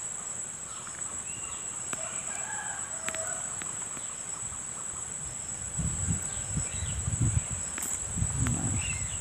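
Outdoor rural ambience: a steady high-pitched insect drone, with scattered bird calls over it. Low rumbling noise comes in about six seconds in and again near the end.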